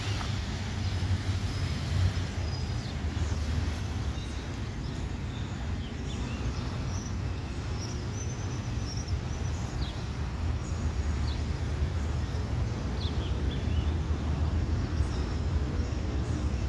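Steady low rumble of a distant Airbus A320neo jet airliner on approach, with a few short high chirps now and then.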